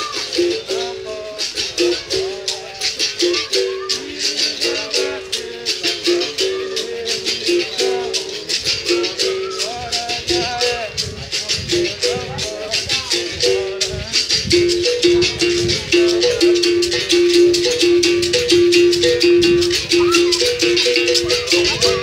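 Capoeira berimbaus played together: the steel string struck with a stick, sounding a low note that alternates with a slightly higher one, over the fast steady shaking of caxixi basket rattles. Past the middle the low note rings out longer and louder.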